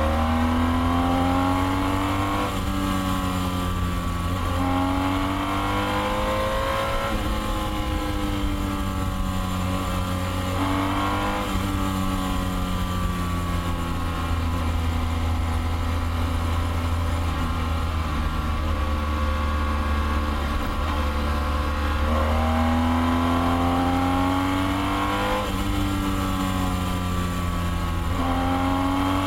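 BMW F800 motorcycle's parallel-twin engine accelerating through the gears under way. Its pitch climbs and then drops sharply at each upshift, again and again, and holds level for a stretch in the middle, over a steady low rumble.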